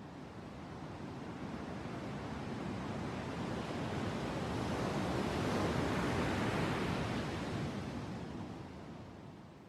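Recorded ocean surf closing out a reggae track: one long swell of wave noise that builds to a peak about six seconds in and then fades away.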